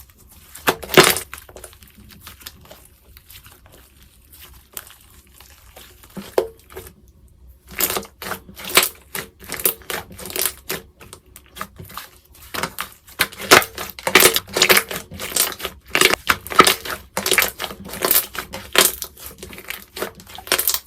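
Slime being squeezed and poked by hand, giving irregular sharp clicks and pops as air pockets burst. It is sparse and faint at first, then turns into dense, loud popping from about a third of the way in.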